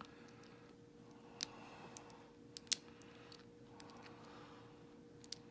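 A lock pick scraping and clicking inside a Yale six-pin euro cylinder as the pins are set: light scratching with a few sharp little clicks, two of them close together about halfway through. A steady faint hum sits under it.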